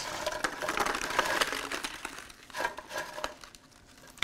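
Crispy fried tater tots sliding off a metal sheet pan and tumbling into a paper takeout tray, a dense rattling clatter for the first two seconds or so. A few lighter taps and rustles follow as the tots settle and are pushed into a pile by hand.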